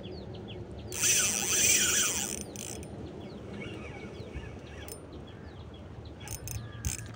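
Birds chirping over and over while a hooked fish is played on a spinning rod and reel, with a loud burst of hissing noise about a second in that lasts about a second and a half, and a few sharp clicks near the end.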